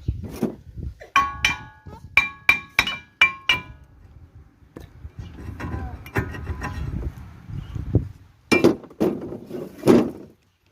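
Steel tools clinking and striking on the front axle nut of a Ford Fusion during a CV joint replacement: a quick series of sharp ringing metal strikes, about three a second, then scraping and rattling, then two heavy knocks near the end.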